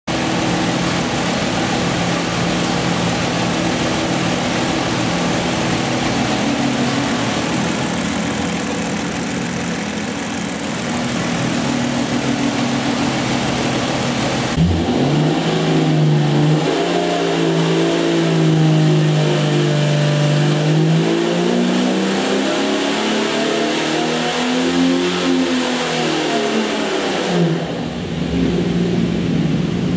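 Jeep 4.6-litre stroker straight-six running on an engine dyno. It runs at a steady speed at first; about halfway through the note changes abruptly and the revs climb, hold, dip and climb again, then drop back near the end.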